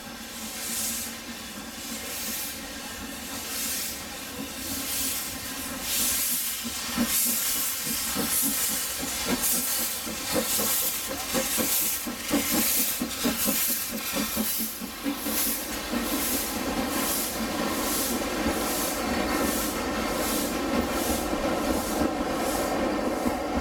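Beyer Peacock 2-4-0 tank steam locomotive pulling away, its exhaust chuffing with a hiss of steam. The beats come about once a second at first and quicken as it gathers speed.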